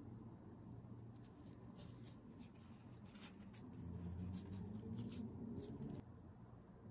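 Faint handling noises of latex-gloved hands working with clear acrylic pieces and a paper towel: small scattered ticks and clicks, then a louder low rubbing from about four to six seconds, over a low steady hum.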